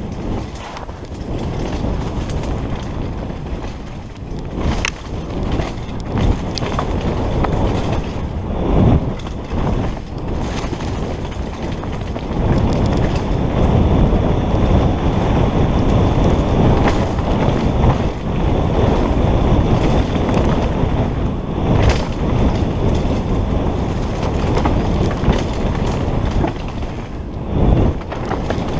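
Wind buffeting a helmet-mounted camera's microphone on a fast downhill mountain-bike descent over dirt singletrack, with the bike and tyres rattling and knocking over bumps. It gets louder about twelve seconds in as the speed picks up.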